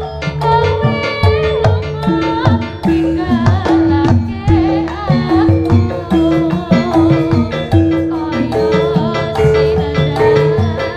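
Live Javanese jaranan accompaniment: hand drums beating a dense rhythm under repeated held gong-chime notes that step between two pitches, with a wavering melody line over the top.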